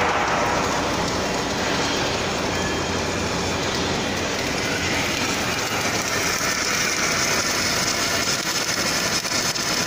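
An automatic longitudinal seam welder at work: the TZ 1000 inverter welding power source and the arc running along the seam give a loud, steady, rough hiss, growing a little brighter about halfway through.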